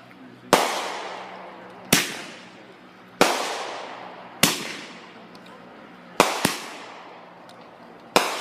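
Fireworks going off: seven sharp bangs at uneven intervals of about one to two seconds, with two in quick succession about six seconds in. Each bang fades away over about a second.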